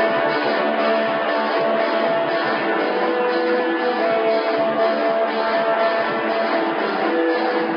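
Shoegaze band playing live, led by guitars strumming held, droning chords in a dense, steady wall of sound. The recording is thin in the bass and dull at the top.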